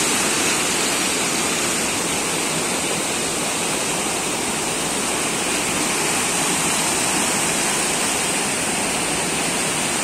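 Fast spring-fed stream rushing white over rocks and small drops in a stone-walled channel: a steady, even rush of water.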